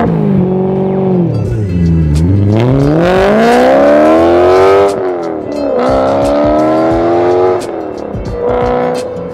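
BMW S65 4.0-litre V8 in an E91 wagon, accelerating hard away: the exhaust note falls briefly, then climbs steeply in pitch, breaks at a gear change about five seconds in, and climbs again before dropping back near the end. Really loud.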